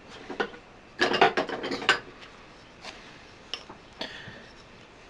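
Clicking and rattling of small metal tools and parts being handled, with a dense clatter about a second in, then a few single clicks.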